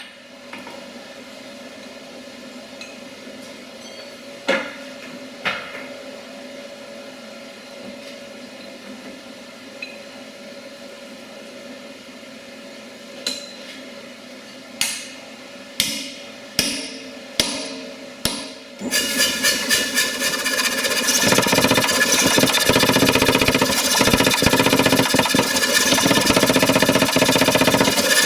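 Single hammer blows ringing on steel over a steady hum: two strikes early on, then a quick run of six or so near the middle. About nineteen seconds in, a much louder rapid mechanical hammering starts and keeps on.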